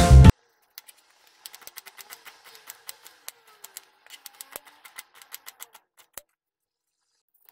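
Kitchen knife slicing a red onion on a white chopping board: quick, uneven taps of the blade hitting the board, several a second, stopping about six seconds in. Intro music cuts off at the very start.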